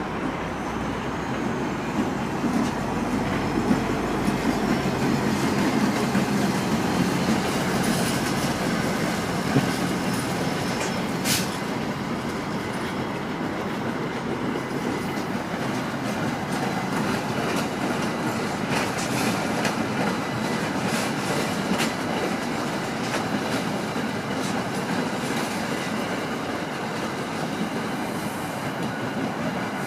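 Passenger train moving through the station: a steady rolling rumble with repeated clicks of wheels over rail joints and a sharp clank about eleven seconds in, plus a faint high wheel squeal in the first few seconds.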